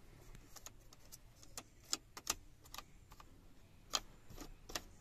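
Handling noise: about a dozen light, sharp clicks and taps at irregular intervals over a faint low rumble, the loudest about two and four seconds in.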